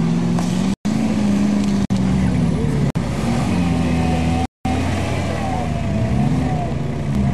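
Off-road 4x4 engines revving as they climb a loose sandy slope, the pitch rising and falling with the throttle. The sound cuts out abruptly four times, the longest gap near the middle.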